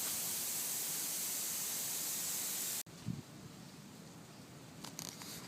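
Steady outdoor hiss of wind and ambient noise on the microphone, which cuts off abruptly about three seconds in to a much quieter background with a few faint knocks.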